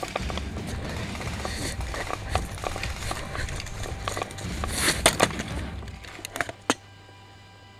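Running footsteps crunching through dry leaf litter and twigs, with rattling of gear and a low rumble of movement on the microphone. The running stops about six seconds in, followed by a couple of sharp clicks.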